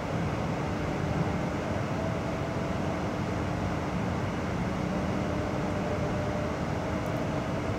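Steady running noise of an electric passenger train heard from inside the carriage: an even rumble of wheels on the rails with a faint steady hum.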